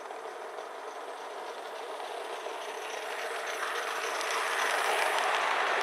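Gauge 1 live-steam model steam locomotive hauling a train of coaches along the rails, a steady running sound that grows louder as the train approaches.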